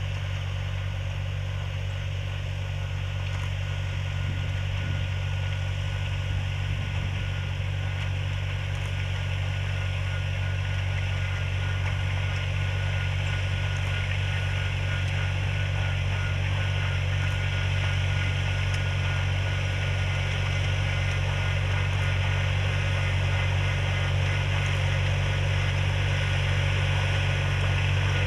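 Engine of a FourJet self-propelled crop sprayer running steadily while it sprays, growing gradually louder as it comes closer.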